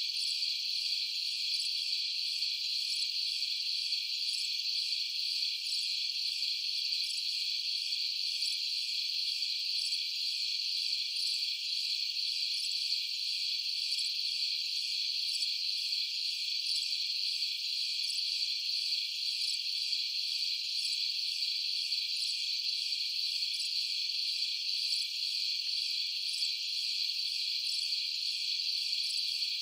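A steady, dense chorus of crickets chirping, high-pitched and unbroken.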